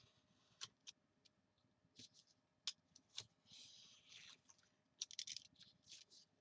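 Faint paper and card being handled: scattered light clicks and taps, with a short soft rustle about halfway through and a quick cluster of clicks near the end.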